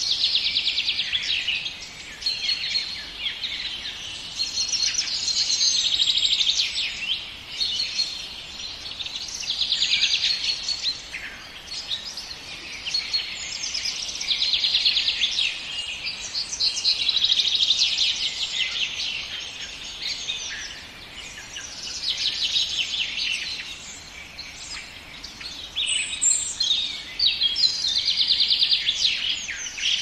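Several songbirds singing at once: overlapping trilled and chirping phrases that swell and fade in waves every couple of seconds.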